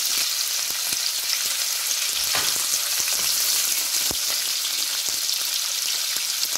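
Chopped onions sizzling steadily in hot oil in a kadai. A metal ladle clicks and scrapes against the pan a few times as they are stirred.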